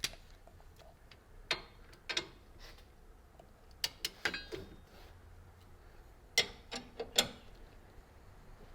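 Ratcheting torque wrench tightening an 18 mm bracket bolt to 96 foot-pounds: sharp metallic clicks in short groups of two or three, about ten in all.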